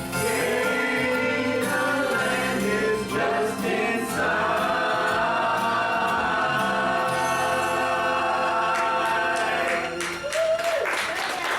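A group of voices singing a gospel hymn together. About four seconds in they settle on a long held final chord, which cuts off about ten seconds in.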